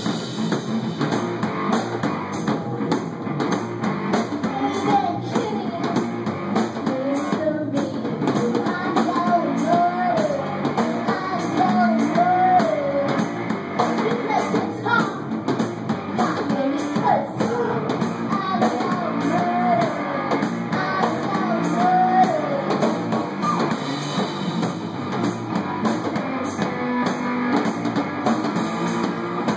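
A two-piece rock band playing live: electric guitar and drum kit.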